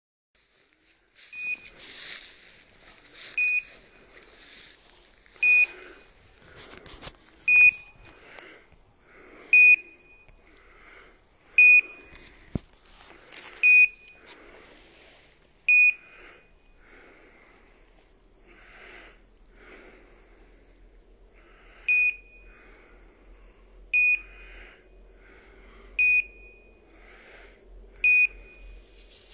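Hunting dog's beeper collar in point mode, sounding a short high beep about every two seconds, with a pause of a few seconds in the middle: the signal that the setter is standing motionless on point. Steps rustle through dry grass and brush underneath.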